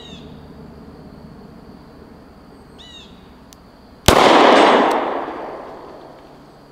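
A single shot from a Kimber K6s two-inch-barrel revolver, fired double action with a .38 Special +P round, about four seconds in, followed by a long echo that dies away over about two seconds.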